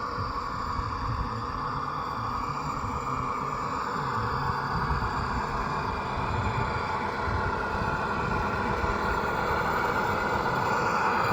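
G scale model train running along its track, a steady rumble of wheels and motor that grows slowly louder.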